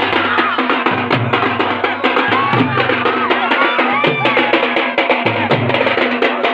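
Music with fast, dense drumming: rapid, evenly repeated drum strokes over a repeating low note pattern, with a wavering melody line above.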